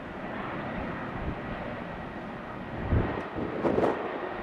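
Jet engines of an easyJet Airbus A320-family airliner running at low power in the landing flare, a steady distant rush with a faint thin whine. Wind buffets the microphone in gusts about three seconds in.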